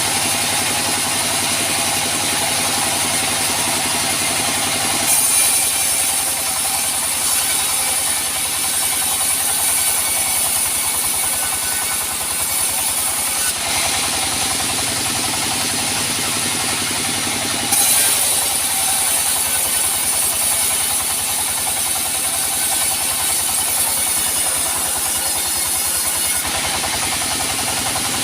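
Sawmill band saw running steadily, its blade cutting through a teak log in two passes of about eight seconds each. Each pass sets in suddenly with a loud high hiss and stops sharply.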